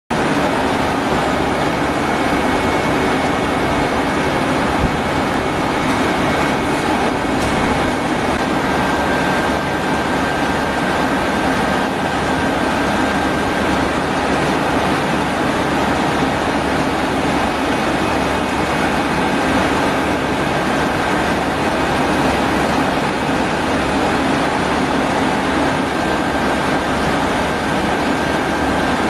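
Okuma 3-axis CNC machining center running, a steady mechanical noise with a constant low hum and faint high whines that hold one pitch.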